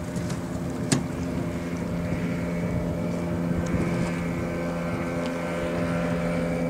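Outboard motor of a small cabin motorboat running steadily at planing speed, a constant engine drone with the hiss of the hull and wake. A single sharp click about a second in.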